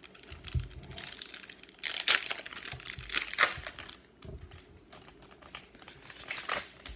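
Trading card pack being handled and opened: the wrapper crinkling with irregular clicks and flicks of cards, the loudest crinkles about two and three and a half seconds in.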